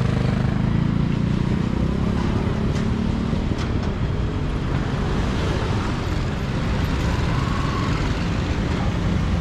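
Busy city street traffic: a steady rumble of car and motorbike engines with no break.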